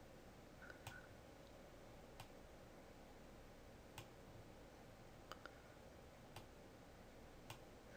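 Computer mouse clicking: about seven single sharp clicks, spaced a second or so apart, over faint room tone, as points are added to a pattern curve.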